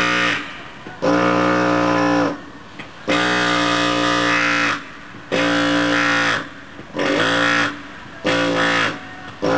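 Gison GPW-4500 pneumatic air hammer with a chisel bit chipping ceramic tiles loose, run in about six bursts of one to one and a half seconds with short pauses between. Each burst is a steady buzzing tone from its rapid blows, dipping in pitch as the trigger is let go.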